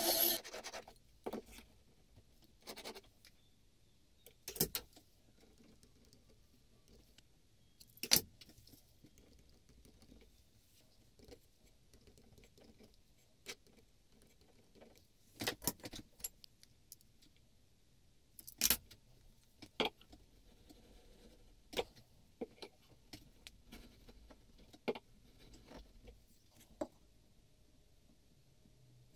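Scattered light knocks and clicks, a dozen or so spread out with quiet between, as tools and a beech block are handled and set down on a wooden workbench during pencil layout.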